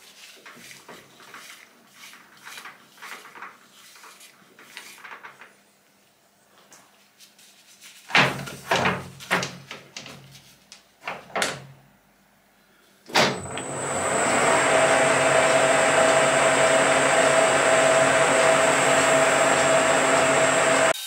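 Faint ticks and then a few loud knocks from work at a metal lathe. About thirteen seconds in there is a click as the lathe is switched on, and its motor spins up to a steady run with a hum and a high whine.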